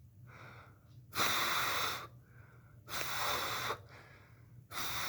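Three loud breathy hissing blasts from a person, each just under a second long, with fainter in-breaths between them.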